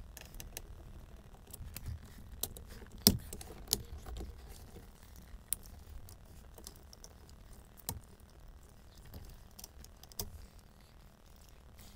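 Scattered clicks and small metal clinks of hand tools and fittings at a car's steering column, with a sharp knock about three seconds in, as the clock spring's retaining bolts are undone and its wiring connectors unplugged.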